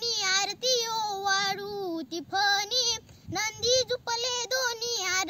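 A young girl singing a Marathi devotional aarti solo, in short sung phrases with brief breaks between them and a wavering vibrato on the held notes.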